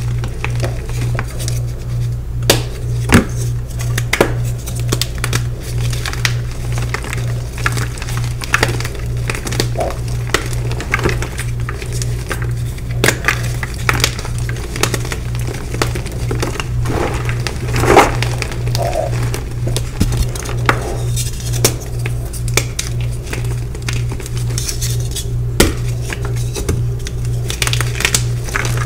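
Dyed gym chalk blocks crushed and crumbled by hand in a plastic bowl: scattered crunches and sharp crackles as the blocks break into powder, over background music with a steady low beat about twice a second.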